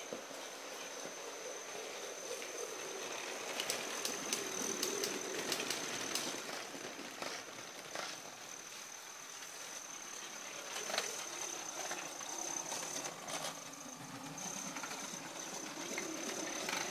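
Lego 10219 Maersk train running along plastic Lego track, its Power Functions electric train motor and wheels making a steady hum, with scattered sharp clicks.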